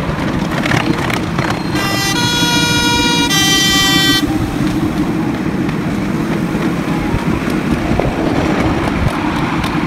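Miniature park train running along its track with a steady rumble, its horn sounding two blasts of different pitch about two seconds in, the first a little over a second long and the second just under a second.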